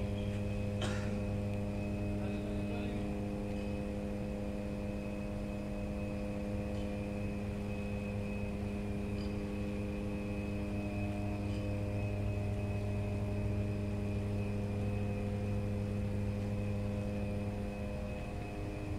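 Steady electrical hum of a high-voltage substation's power transformer and switchyard: a deep, even mains hum with a buzzy stack of overtones and a faint high whine above it.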